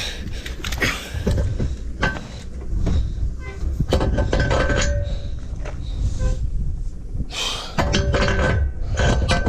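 Metal knocks and clinks from a steel bar being worked into a crank handle, several of them ringing briefly, over wind buffeting the microphone.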